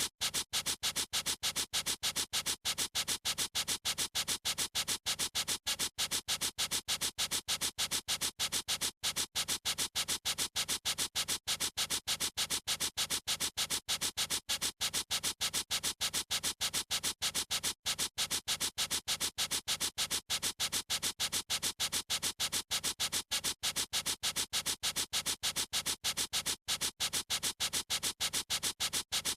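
Felt-tip marker pen scratching across a surface in rapid, evenly repeated strokes, several a second without a break, the sound mostly high-pitched.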